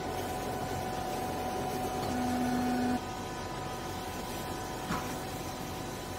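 Vertical hydraulic baler's electric pump motor running with a steady hum. About two seconds in, a lower tone comes in louder for about a second and cuts off, followed by a single short click about five seconds in.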